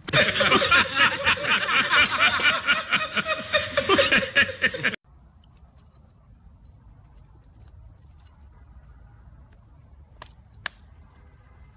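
Loud laughter that stops abruptly about five seconds in, followed by faint background noise with a couple of light clicks.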